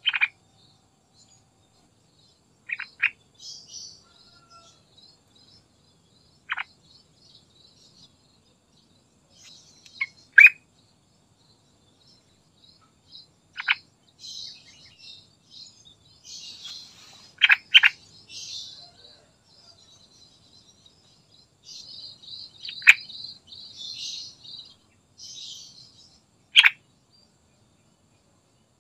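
Yellow-vented bulbul (trucukan) singing. Loud, short whistled notes slide down in pitch every few seconds, some in quick pairs, with softer, high, chattering warbles in between.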